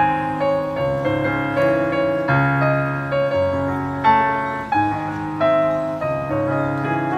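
Piano being played: sustained chords with a bass note changing about once a second under a flowing melody line.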